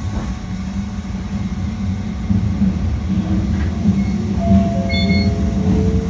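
Toyama Chiho Railway 10030-series electric train heard from the cab, its wheels rumbling louder as it rolls onto a steel truss bridge. From about halfway, the traction motor whine rises slowly in pitch as the train picks up speed.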